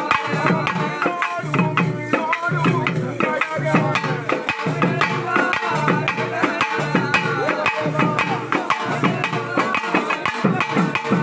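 Pambai double drum beaten with sticks in a fast, unbroken rhythm, dense sharp strokes over regular deeper beats, with a wavering higher tone running over it. It is ritual drumming played to call the deity Pavadairayan.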